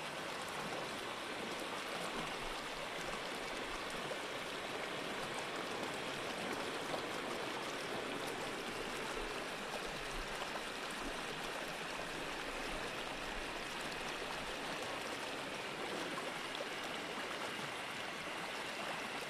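A steady rush of water, an even hiss with no rhythm or breaks.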